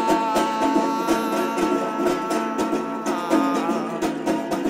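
Music: a plucked string instrument strummed in a fast, even rhythm, with a long held high note over it for about the first three seconds.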